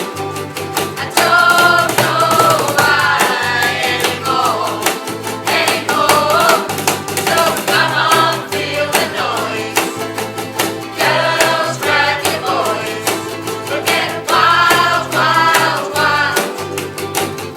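Music with singing: a sung vocal line over a steady beat and a repeating bass line.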